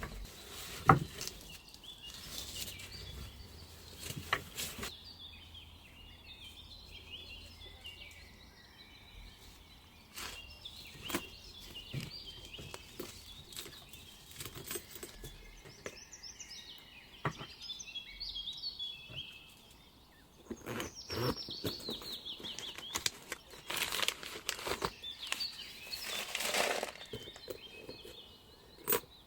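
Paper or plastic packaging rustling and crinkling as a new handbag is unboxed, with scattered clicks and taps and a longer burst of rustling near the end. Birds chirp steadily in the background.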